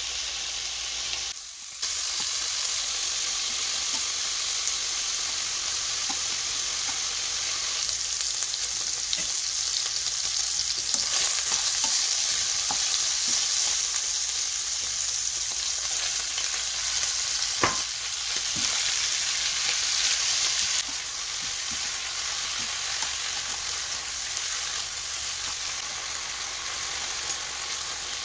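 Pork belly pieces sizzling as they fry in a nonstick pan, a steady hiss that grows louder for a stretch in the middle. A spatula stirs and clicks against the pan a few times, and near the end the pork is being stirred together with kimchi.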